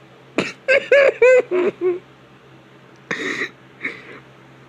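A man laughing: a quick run of short, high-pitched giggles, then two wheezy, breathy gasps about three seconds in.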